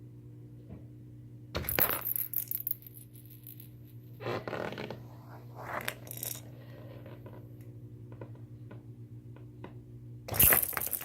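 A cat playing at a closed door, making irregular bursts of metallic jingling and rattling, the loudest near the end. A steady low hum runs underneath.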